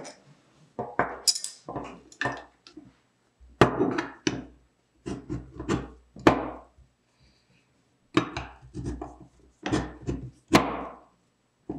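Steel horseshoe magnets of a Stromberg-Carlson telephone's hand-crank magneto knocking and clacking against the magneto frame and the workbench as they are fitted on by hand. The knocks come irregularly, with a short pause about seven seconds in.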